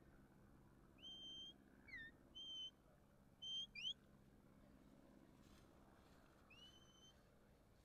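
A sheepdog handler's whistle commands to a working dog: a string of short, clear whistles, some held flat, some falling or rising in pitch, with a longer rising whistle near the end. Each whistle is a command steering the dog around the sheep.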